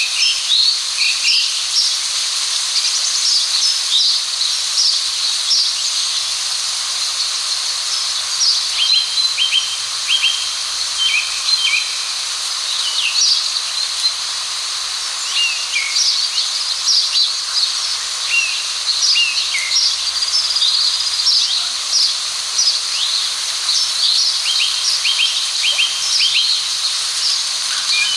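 Many small birds chirping, with short high calls and quick downslurred notes repeating throughout, over a steady high hiss.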